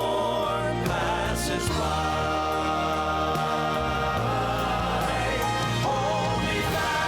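Southern gospel music with sung voices over instrumental backing and a steady bass line.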